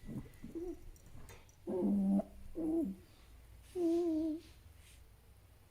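Fennec fox calling: a few faint short calls, then three louder low-pitched calls about a second apart, the last one wavering in pitch.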